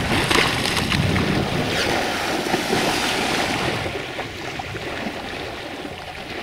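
Sea water rushing and splashing along the hull of a yacht under way, with wind buffeting the microphone; it eases off about two-thirds of the way through.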